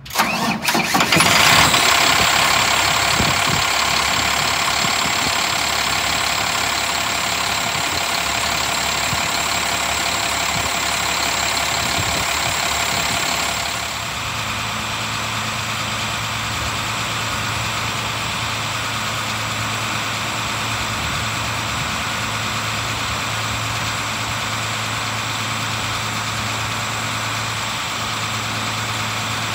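International 7400 truck's 9.3-litre six-cylinder diesel starting, loudest for the first couple of seconds, then idling steadily. About 14 seconds in the idle turns to a lower, steadier hum.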